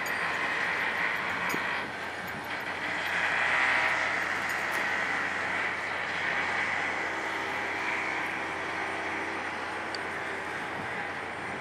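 Steady outdoor background noise, an even hiss that swells slightly about three to four seconds in.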